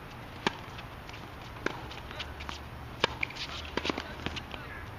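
Tennis ball struck by rackets in a doubles rally: a serve about half a second in, a return about a second later, and a third, louder hit about three seconds in. A quick cluster of smaller clicks and shoe scuffs on the hard court follows.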